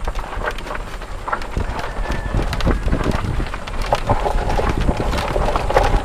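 Water buffalo cart jolting along a bumpy track, with irregular knocks and clatter over a steady low rumble.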